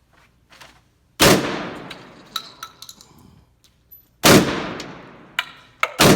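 Three shots from an AR12 semi-automatic 12-gauge shotgun, about three seconds apart, the last one near the end. Each shot rings out with a long echo in the range, and sharp metallic clinks come between the shots.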